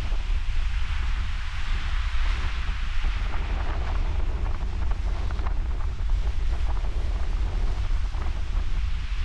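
Ocean surf washing against the shore, with strong wind buffeting the microphone.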